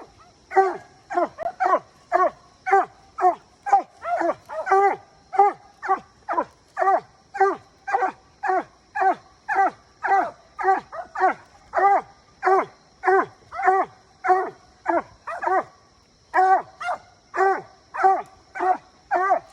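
Treeing Walker coonhound barking steadily at a tree, about two barks a second, each bark dropping in pitch: a coon dog's tree bark, signalling a treed raccoon.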